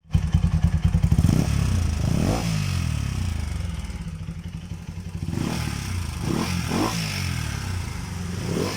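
Kawasaki Rouser NS200 motorcycle engine running, loudest in the first second or so, and blipped in short revs about six times.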